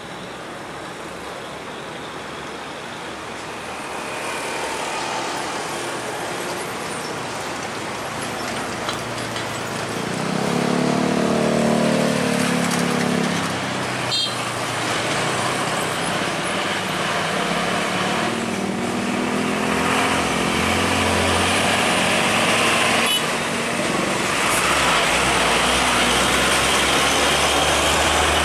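Heavy diesel trucks, among them a Hino bulk cement tanker, driving past with their engines running, over steady road traffic noise. The engine sound grows louder about ten seconds in as a truck passes close.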